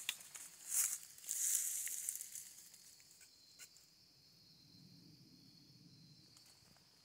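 Rustling and crunching of dry brush and leaves underfoot while walking through vegetation, loudest in the first two seconds and then fading. A steady, high insect trill, such as crickets, runs underneath.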